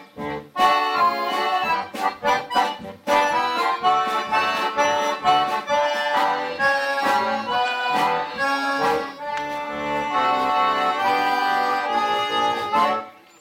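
Accordion orchestra playing together: short, choppy chords for the first few seconds, then sustained chords under a melody. The music stops near the end.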